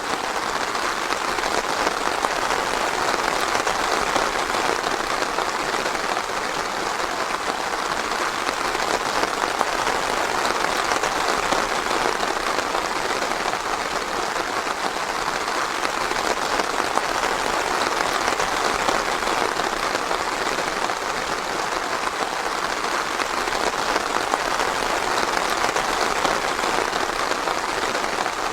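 Steady rain falling on leaves and ground in a forest, a dense, even patter with no thunder.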